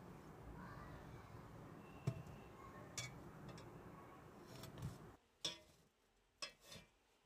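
A few faint, short clicks and light knocks from a stainless steel tri-ply cooking pot being handled by its handle, over a low background hum that drops away about five seconds in.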